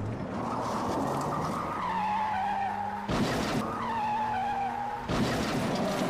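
Go-kart engine sound effect running at a steady pitch, with tyre-skid noise cutting in twice: briefly about three seconds in, and again for over a second from about five seconds in.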